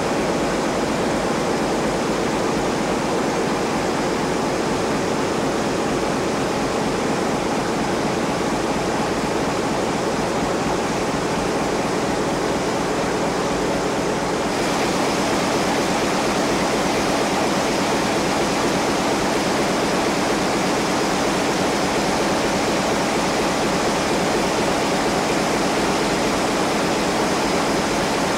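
Steady din of a ship's engine room at work: large diesel engines and electric pump motors running together in one dense, even noise. It gets a little brighter and louder about halfway through.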